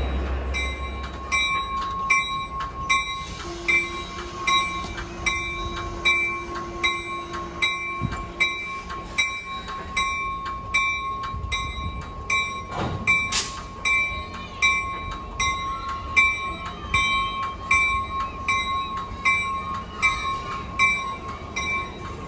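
Train at a station platform with its bell ringing steadily, about one and a half strokes a second, over the sound of the moving train. There is a short hiss about halfway through.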